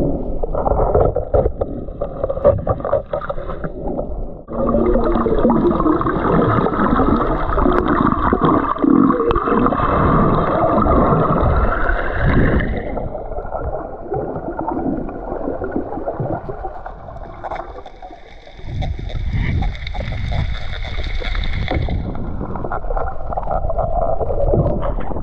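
Muffled underwater water noise picked up by a camera below the surface: rushing and gurgling water with bubbles from snorkelers breathing out through their snorkels. It grows quieter for a few seconds past the middle, then picks up again.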